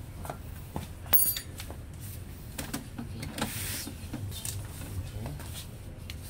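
Handling noises around a laser printer: scattered clicks and knocks, with a sharp, briefly ringing clatter about a second in. Near the middle comes a rustle of paper as printed sheets are pulled from the output tray, all over a low steady hum.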